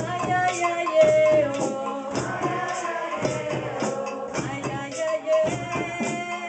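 A woman singing a held, bending melody into a microphone over a light, steady percussion beat of about four strokes a second.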